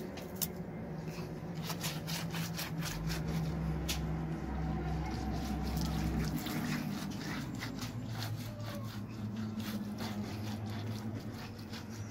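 Water poured from a plastic ewer splashing onto a rough flat stone slab as it is scrubbed with a grass broom and rubbed by hand, giving scratchy brushing and trickling sounds. A low steady hum runs underneath.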